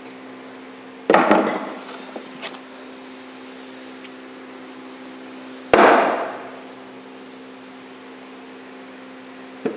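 Two loud metal clanks, one about a second in and another near six seconds, each ringing briefly. They come from disassembling the spindle of an Ammco 4000 brake lathe: a retaining ring is pulled off with pliers and the steel spindle is worked loose in its housing. A steady hum runs underneath.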